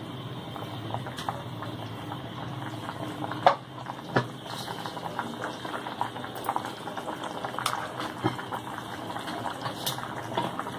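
Thickened chicken corn soup bubbling steadily at a boil in a pan, with two sharp knocks about three and a half and four seconds in.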